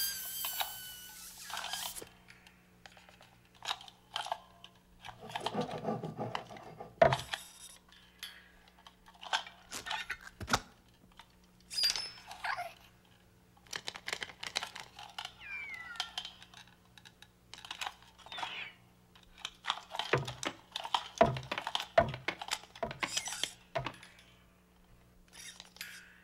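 Sound effects for animated metal desk lamps: scattered clicks, clunks and brief squeaky creaks of springs and joints, with the small lamp's base tapping the wooden table as it moves, between quiet gaps.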